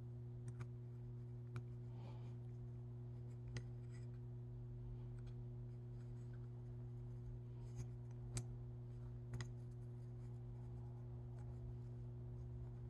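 Scattered small clicks and taps as wooden ball eyes on metal screw eyes are handled and fitted inside a hollow carved wooden puppet head, over a steady low hum.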